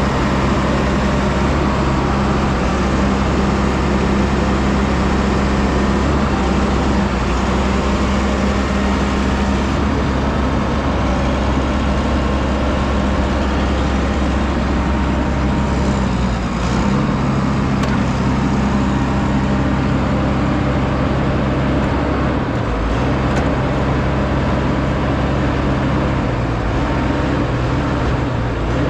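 Diesel engine of a 2004 Vögele 2116T asphalt paver running steadily with a constant low hum. Its note shifts slightly about halfway through.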